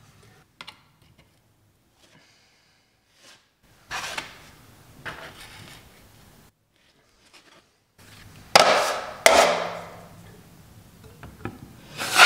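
Drywall knife scraping thick setting-type joint compound across a drywall patch: several short strokes with pauses between, quieter at first and louder from about two-thirds of the way in.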